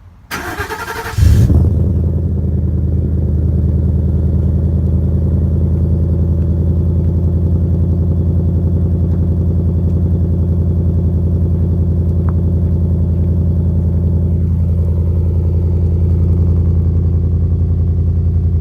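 Pickup truck engine cold-starting through a 14-inch Magnaflow muffler, with the factory resonator and muffler cut out: the starter cranks for about a second, the engine catches with a loud blip, then settles into a steady idle.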